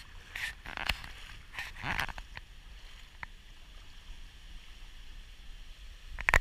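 Gusty wind from Hurricane Irma buffeting the microphone: a low rumble with swells of rushing noise in the first couple of seconds. A sharp knock near the end.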